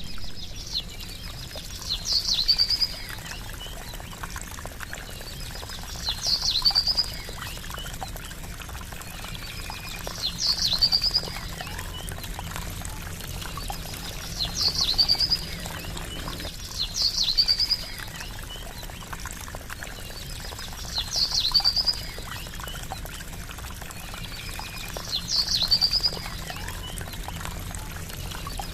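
Water trickling and splashing steadily, with a short bird call of quick rising chirps repeating at even spacing about every four seconds.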